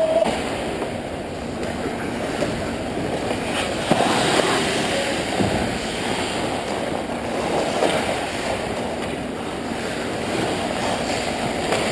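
Ice hockey play close to the goal: skates scraping across the ice under a steady rushing wash of rink noise, with a few sharp clacks of sticks and puck.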